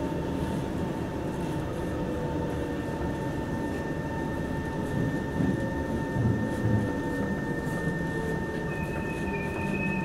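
Steady hum inside a Singapore MRT train car standing at a station, with two steady whining tones from its on-board equipment. A couple of soft bumps come about halfway through, and a higher steady whine starts near the end.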